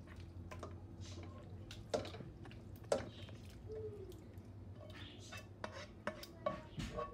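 Spoon scraping and knocking against a nonstick pan as thick chicken masala is scooped out onto rice in a steel pot, with sharp clinks about two and three seconds in and a run of lighter knocks near the end, over a low steady hum.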